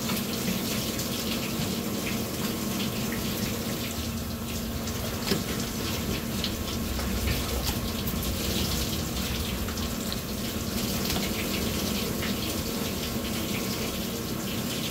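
Tap water running from a hose and spattering over a gutted flounder as it is rinsed by hand on a cutting board, with a steady low hum underneath.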